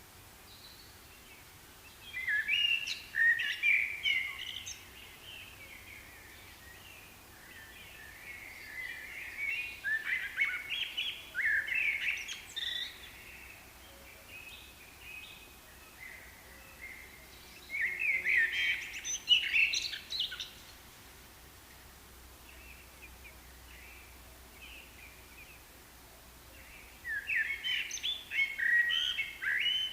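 A songbird singing in bouts of quick, varied chirping phrases, each a few seconds long, four times with quieter pauses between them.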